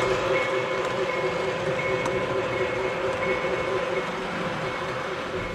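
Prewar American Flyer O gauge tinplate electric train running on the track: a steady motor whine over the rumble of wheels on rail, slowly growing quieter.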